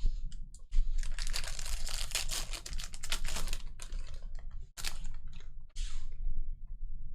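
A trading-card pack's foil wrapper being torn open and crinkling for about three seconds, followed by short rustles and clicks as the cards are handled.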